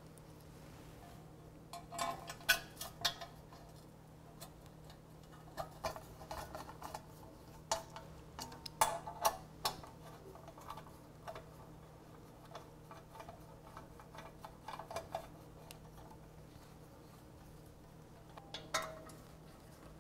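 Light metallic clicks and clinks of M6 countersunk bolts being fitted and turned with a hex bit socket into the underside of a metal motorcycle skid plate. They come in small groups a few seconds apart, over a faint steady hum.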